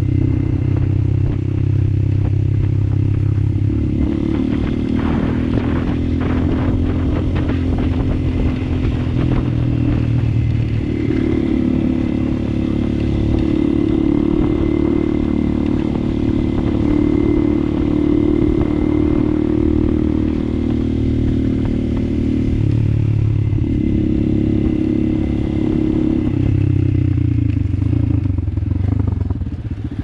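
Motorcycle engine running while riding. Its note steps up and down several times with throttle and gear changes.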